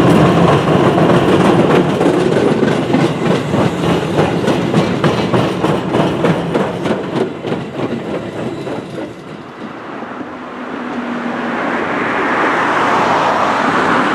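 Tobu 6050-series electric train passing close by over a steel truss bridge: rapid clickety-clack of the wheels over rail joints on a loud rumble, dying away about nine or ten seconds in. A smoother rumble of a train crossing a truss bridge further off builds near the end.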